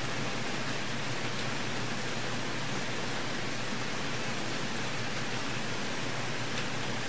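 Steady hiss with a faint low hum, unchanging throughout: the background noise of the microphone and room, with no other sound.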